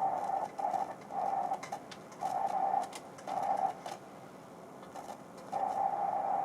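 Electronic tone from an audio mixer: a steady mid-pitched hum chopped into short bursts of under a second with uneven gaps, then a longer pause and a longer burst near the end, over a steady hiss.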